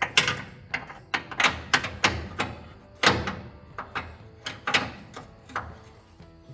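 A run of sharp, irregular metal knocks and clanks, roughly two a second, from tools working on a pickup truck's transmission crossmember and its bolts.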